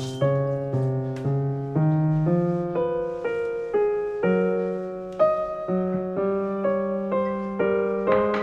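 Background piano music: a gentle melody of single notes and chords, with a few faint clicks under it.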